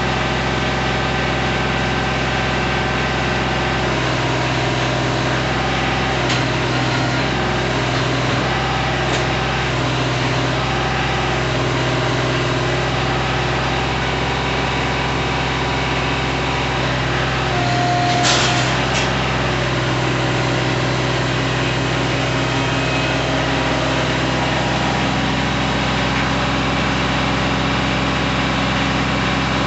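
Kubota B2320 compact tractor's three-cylinder diesel engine idling steadily. A brief sharp click-and-hiss comes about eighteen seconds in.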